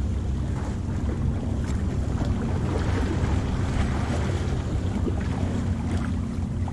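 Wind buffeting the microphone, a steady low rumble, over the wash of sea surf against the rocks.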